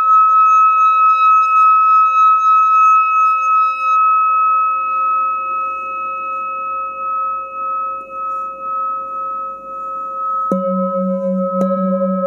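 Metal singing bowl ringing, its single high tone with overtones slowly fading. About ten seconds in, a bowl is struck twice with a wooden mallet, starting a fresh, lower ring that wavers in level.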